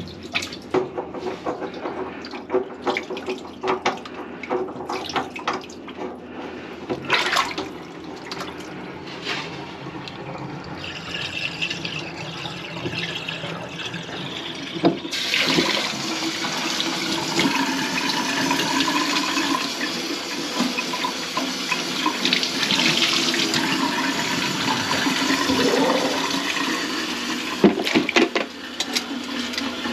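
Water running into a kitchen sink amid scattered knocks and clatter of work at the sink. About halfway through the flow turns up suddenly to a louder, steady rush, which eases off near the end with a few more knocks.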